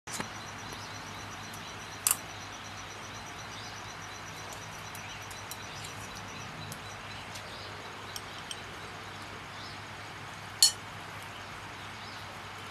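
Chopsticks clinking against a small ceramic bowl: two sharp clinks, about two seconds in and near the end, with a few faint ticks between, over a steady background hiss.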